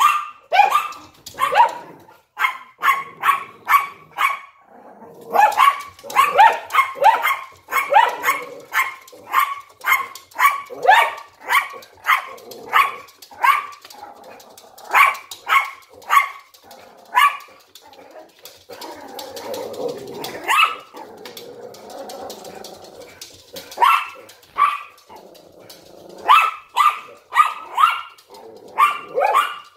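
A Yorkshire Terrier and a Lhasa Apso barking over and over, several sharp barks a second, with a few seconds' lull about two-thirds of the way through before the barking picks up again.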